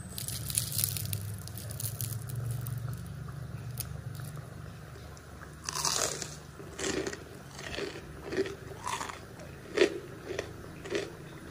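Crispy vegetable fritters (bakwan sayur) crackling as they are pulled apart by hand. From about halfway, a run of loud crunches, about one and a half a second, as a fritter is bitten and chewed.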